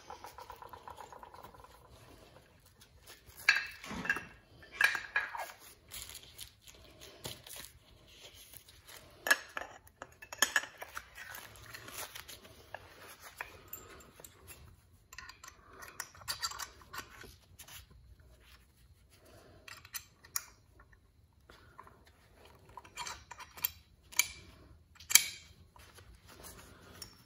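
Steel-backed race brake pads and their retaining pins being fitted into a Wilwood brake caliper by hand: scattered light metal clinks and taps, with short rubbing scrapes between them.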